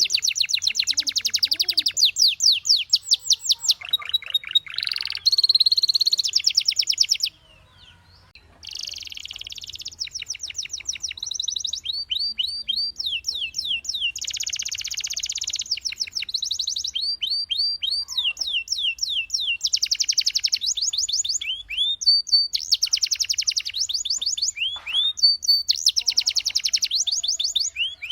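Domestic canary singing: long, fast trills of rapidly repeated notes and quick sweeping whistles. It breaks off briefly about seven seconds in, then goes on.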